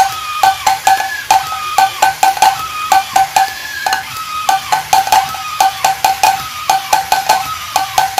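1960s Alps Teddy the Drummer toy beating its little drum with a stick while it walks and turns: quick ringing taps in short runs, several a second.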